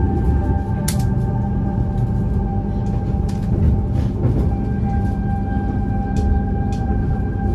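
Argo Wilis passenger train running along the track: a steady low rumble with a steady hum and a few sharp clicks.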